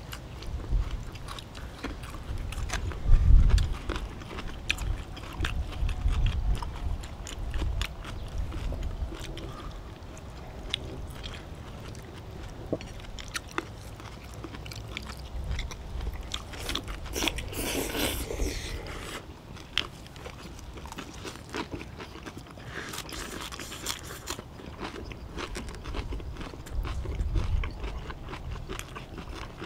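Close eating sounds: chewing and crunching of fresh cabbage kimchi, with frequent clicks of chopsticks and bowls. There are a few low thumps, the loudest about three seconds in, and a longer slurp of noodles about eighteen seconds in.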